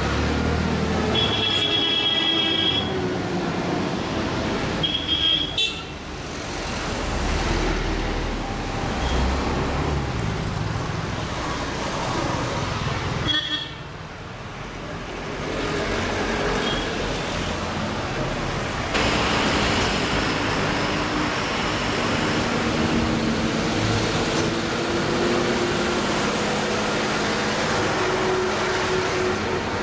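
Road traffic with engines running and vehicles passing, a horn honking about a second in and short toots again around five and thirteen seconds in.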